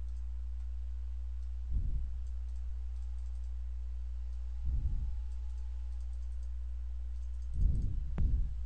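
Steady low electrical hum, with a few soft computer-mouse clicks about every three seconds and faint scattered ticks.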